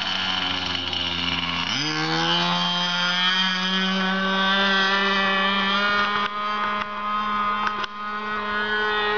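Tower .75 two-stroke glow engine on an RC airplane, swinging a 12x6 propeller, runs at low throttle and is opened up sharply about two seconds in. Its pitch jumps, then creeps slowly higher and holds at a steady high-revving buzz as the plane climbs away.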